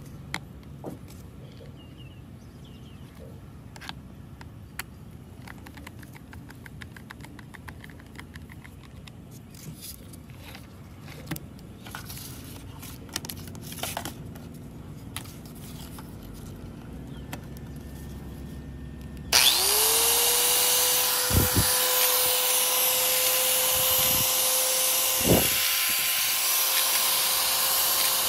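Angle grinder with a freshly repaired commutator motor, switched on about two-thirds of the way in: it spins up quickly and runs freely with a steady high whine and hiss, a test run after the repair. Before that, only light clicks and taps from handling the tool.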